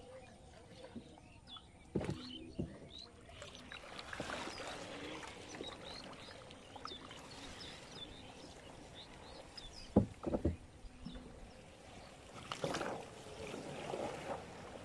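Small wooden boat being poled through a flooded, weed-choked paddy field: water and plants brushing along the hull, with a few sharp knocks, the loudest about ten seconds in.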